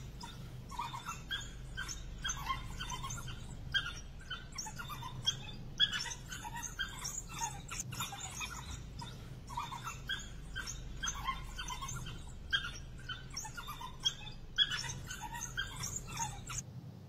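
African wild dogs twittering: a dense run of short, high, bird-like chirps from the pack around its cornered prey, breaking off suddenly near the end. A low steady hum runs underneath.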